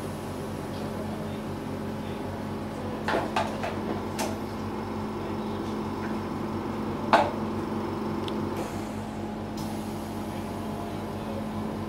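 Oxygen concentrator running with a steady machine hum. A few light knocks come about three to four seconds in, and a sharper, louder knock about seven seconds in.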